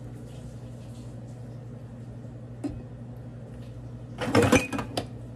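Dishes clattering in a stainless steel sink as mugs and cups are picked up and set down among the pile: one light knock, then a short burst of clinks and knocks about four seconds in, over a steady low hum.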